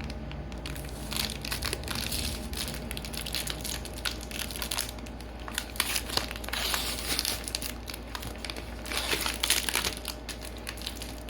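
Packaging being crumpled and handled, with irregular crinkling and crackling throughout.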